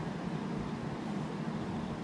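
JR 701-series electric train standing at the platform, giving off a steady low hum.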